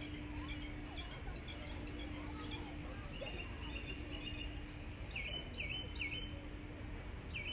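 A songbird singing a long run of quick, repeated high chirps, many of them short downward sweeps or V-shaped notes. Under it a faint steady low hum breaks off a few times, over a background rumble of outdoor noise.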